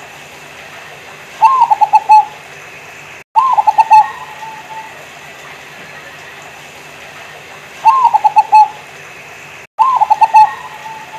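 Local zebra dove (perkutut) cooing: four short phrases, each a quick stuttering run of notes that opens a little higher, coming in two pairs a few seconds apart.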